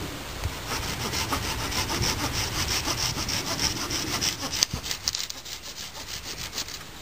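Hand saw cutting through wood in a run of rhythmic back-and-forth strokes, a sharp knock about four and a half seconds in, then a quicker run of strokes that stops shortly before the end.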